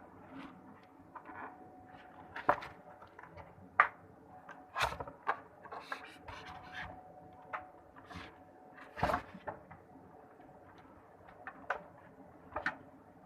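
Hard plastic parts and packaging of a folding washing machine being handled, giving scattered clicks, knocks and scrapes at irregular intervals. The sharpest knock comes about four seconds in.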